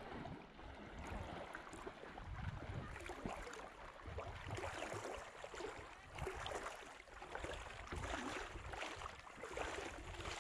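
Water splashing and lapping around a small boat moving along, with irregular wind rumble on the microphone.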